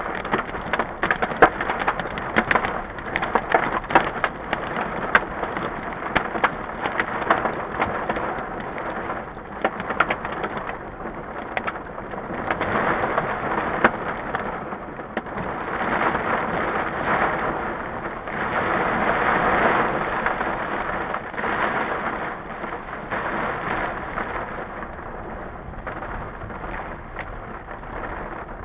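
Hail and heavy rain pelting a parked car, heard from inside through the dashcam: sharp hail ticks crowd the first ten seconds or so, then the rain swells in waves of dense hiss and eases near the end.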